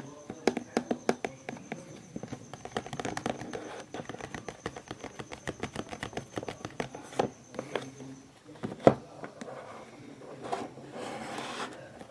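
Packaging for LED lights being handled and opened: a dense run of quick clicks and crinkles, one sharper click about nine seconds in and a short rustle near the end. A faint high whine stops about eight seconds in.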